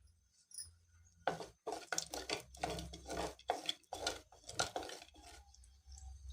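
Mustard and cumin seeds spluttering in hot oil in a pan: irregular sharp crackles and clicks that start about a second in, with a low hum underneath.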